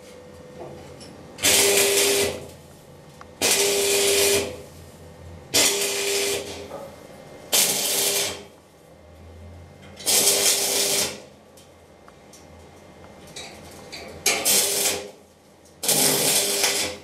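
Electric arc welder striking an arc seven times in short bursts of about a second each, a harsh hiss with a steady hum under it, going quiet between strikes.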